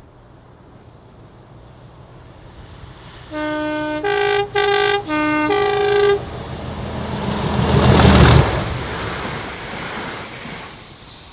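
British Rail Class 37 diesel locomotive sounding its two-tone horn in five short blasts that alternate low and high notes. It then passes close by, its English Electric engine growling louder to a peak and fading away.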